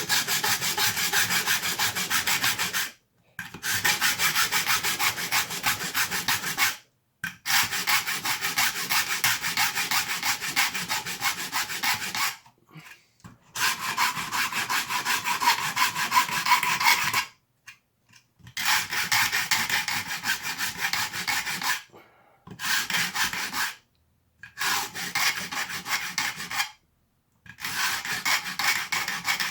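Hand file rasping on 3D printed plastic in quick back-and-forth strokes, about eight runs of a few seconds each with short pauses, taking the excess plastic down flush with the body.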